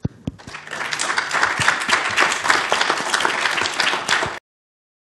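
A small audience applauding, the clapping building up over the first second, then cutting off suddenly about four seconds in.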